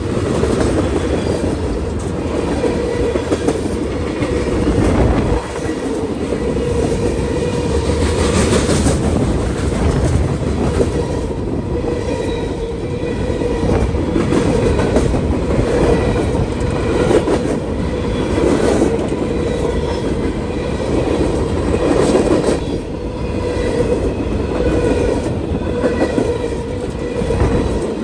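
A train rolling past, a steady loud rumble with its wheels clicking on the rails.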